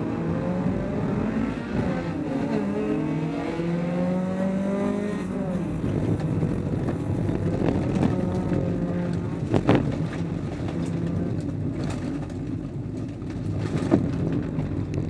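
Honda Civic folkrace car heard from inside its stripped cabin: the engine revs with pitch rising and falling through gear changes, then runs under a rougher noise of tyres on the dirt track. Two sharp knocks come about ten seconds in and near the end.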